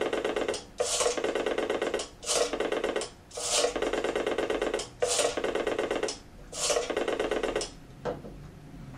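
Telephone ringer bells ringing in about six bursts of roughly a second each, separated by short gaps, stopping abruptly about eight seconds in.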